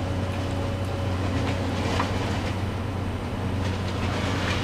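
A steady low mechanical drone, like heavy machinery running, with a few faint clicks.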